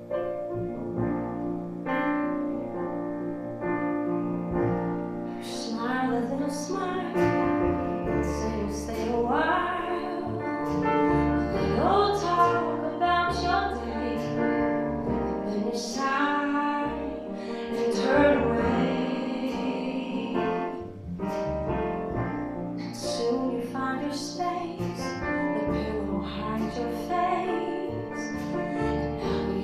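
A woman singing a slow ballad to grand piano, with a small acoustic band of upright bass and acoustic guitar. The piano plays alone at first, and the voice comes in about six seconds in, with a deep bass line joining shortly after.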